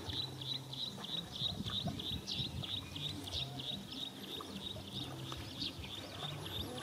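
Rapid, even, high-pitched outdoor chirping, about five chirps a second, growing fainter in the second half.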